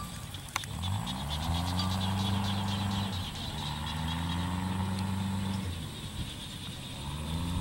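A motor engine running, rising in pitch and then holding steady, several times over.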